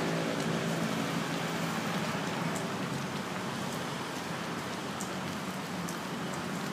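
Pot of budae jjigae stew bubbling on a portable gas stove: a steady hiss with scattered small pops.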